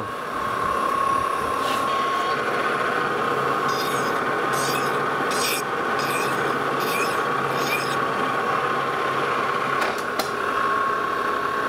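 A hand file stroked against the knurled edge of a collet nut spinning in a metal lathe, a run of short rasping strokes about two a second in the middle, rolling over the sharp edge left by knurling. The lathe runs steadily underneath with a held hum.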